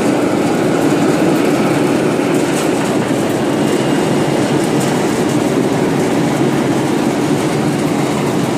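Cotton-processing machinery and conveyors running with a steady, loud mechanical rattle.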